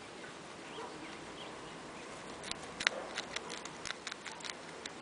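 Guinea pig chewing a long grass stem, a quick run of crisp crunching clicks that starts about halfway in. The loudest click comes just before the middle of that run.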